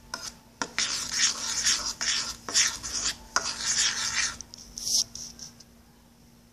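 Knife blade stirring and scraping crushed graham cracker crumbs in a bowl: a quick run of gritty scraping strokes for about three and a half seconds, then one sharper scrape about five seconds in.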